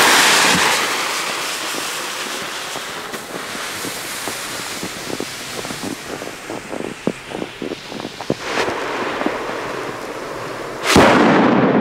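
Fuse of a large Polish firecracker hissing as it burns down, with scattered crackles. About eleven seconds in it goes off with a loud bang whose rumble dies away slowly.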